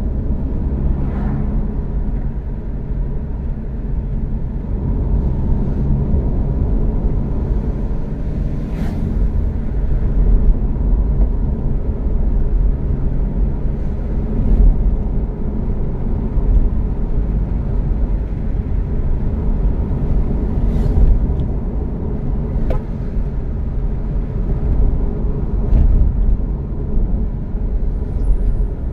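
Steady low rumble of road and engine noise inside a moving car's cabin at cruising speed, with a few brief knocks along the way.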